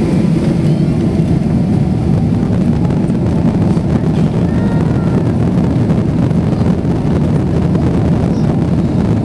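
Jet engines of a Boeing 777-200 heard from inside the passenger cabin at takeoff power: a loud, steady, low noise with no breaks.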